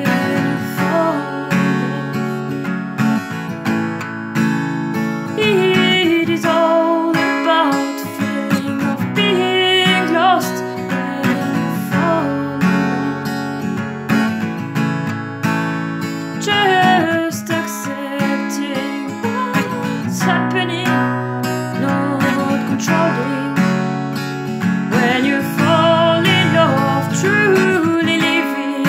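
Acoustic guitar strumming chords as the accompaniment to a song, with a wavering melody line over it that sounds like a singing voice.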